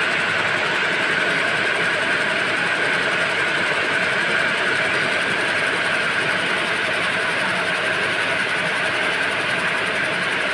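High-speed needle loom running, weaving nylon belt webbing, with a steady, fast mechanical rattle.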